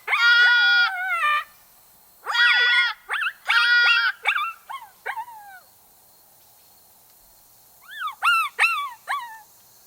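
Predator calling: long, pitched fawn distress bleats mixed with short, falling coyote pup whimpers and yips, coming in groups with a pause of about two seconds before a last run of yips near the end.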